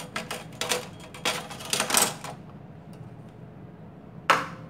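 Clicks and knocks of a kitchen knife, fruit and a metal box grater being handled on a plastic cutting board. A cluster of clicks comes in the first two seconds, then one sharp clack about four seconds in.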